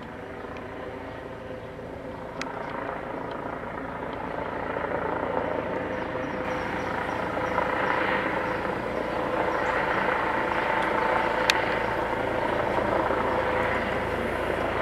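Eurocopter EC135 twin-turbine medevac helicopter, with a Fenestron ducted tail rotor, flying in toward the listener; its rotor and turbine sound, with a steady whine, grows steadily louder. Two sharp clicks, about two and eleven seconds in.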